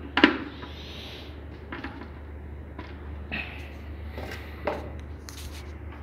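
Scattered clicks and knocks of a screwdriver and the water heater's plastic end cover being handled, the loudest knock about a quarter second in, over a steady low hum.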